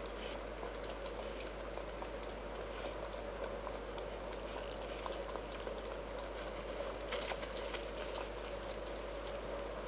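Rain pattering as many scattered light ticks and taps over a steady hiss, with a few closer clusters about halfway through and again near the seven-second mark.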